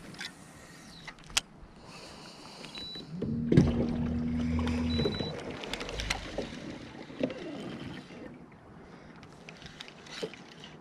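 A small electric motor hums steadily for about a second and a half, a little past the middle, amid light clicks and knocks of handled gear.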